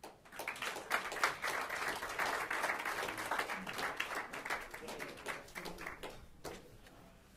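Audience applauding. The clapping builds within the first second and tapers off over the last couple of seconds.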